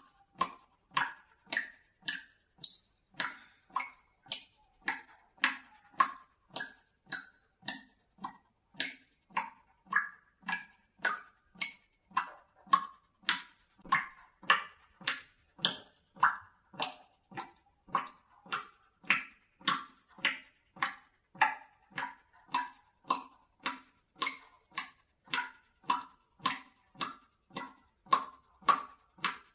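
Water dripping from a tap that has not been shut tightly into a bucket of water: steady plinks of single drops, about two a second, each with a short ringing note.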